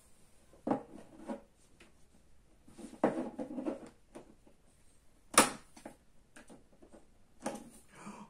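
Pry tool working at the seam of an iPod Video's case: scattered scrapes and clicks of tool on plastic and metal, with one sharp click, the loudest, about five seconds in.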